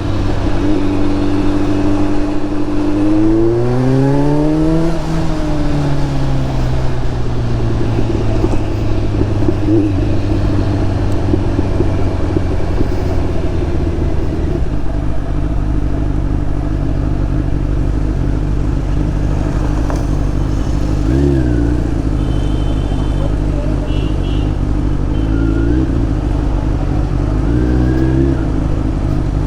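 Kawasaki Z900's inline-four engine running through an SC Project slip-on exhaust while riding. The engine note climbs as it accelerates about three seconds in, then eases back down. It then runs steadily at cruising revs, with a few brief rev changes near the end.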